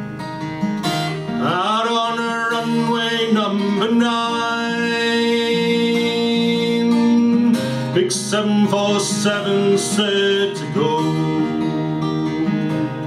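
A man singing to his own acoustic guitar, playing a folk song. The guitar plays alone at first. The voice comes in with a rising phrase about a second and a half in, holds a long note, sings a second phrase, and drops out near the end, leaving the guitar.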